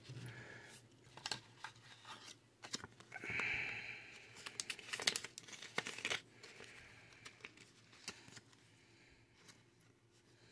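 Yu-Gi-Oh trading cards and a foil booster-pack wrapper being handled: quiet scattered clicks and crinkles, with a longer rustling scrape about three seconds in and a flurry of clicks around five to six seconds.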